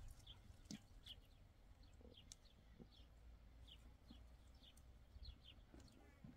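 Near silence: faint outdoor ambience with a small bird chirping over and over in short high notes, about two a second, and a few faint clicks.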